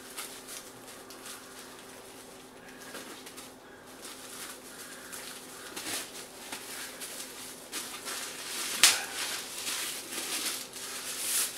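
Hands rustling and scraping a burlap sack and its twine tie as the drawstring is undone and the sack opened, with one sharp click about nine seconds in.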